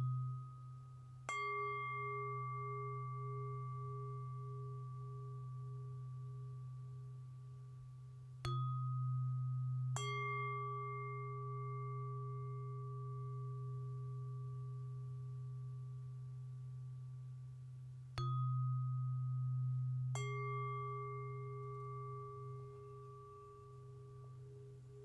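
Tuning forks and a singing bowl struck in turn and left to ring. Three pairs of strikes come about every eight to ten seconds, each strike followed by long clear tones that slowly fade, one tone wavering. A low steady tone carries on underneath.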